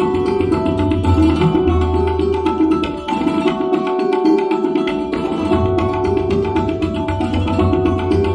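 Santoor played in fast runs of hammer strokes, its strings ringing, accompanied by tabla. The tabla's deep bass strokes drop out for about two seconds midway, then return.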